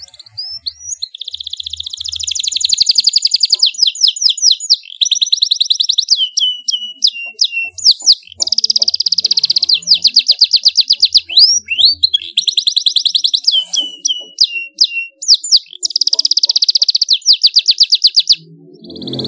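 Canary singing loudly in long runs of rapid trills and rolls, broken by short pauses, with quick downward-sweeping whistles between the runs. The song stops shortly before the end.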